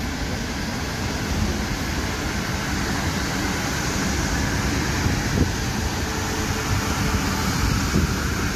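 South Western Railway Class 450 electric multiple unit running past on the rails: a steady rumble of wheels and traction motors with a faint hum.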